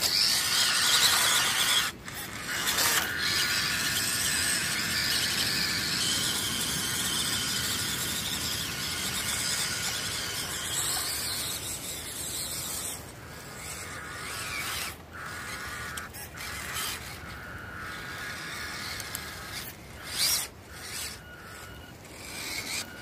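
WPL C14 1:16 RC crawler truck's small electric motor and geartrain whining as it drives over wet mud and leaves, a thin high whine that comes and goes with loudness rising and dipping.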